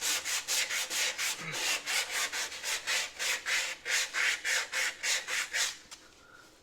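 Hand sanding with 180-grit sandpaper over a cured short-strand fiberglass filler patch on a car's fender, in quick back-and-forth strokes at about four a second. The strokes stop shortly before the end.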